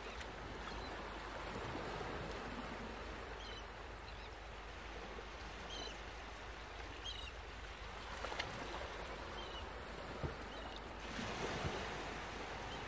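Faint steady rushing water ambience, with a few short high chirps scattered through it and a couple of soft clicks past the middle.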